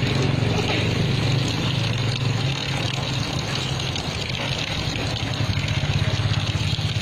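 Water spraying from a garden hose and splashing onto wet concrete, an even hiss, over a steady low mechanical hum that takes on a faster pulsing beat in the last couple of seconds.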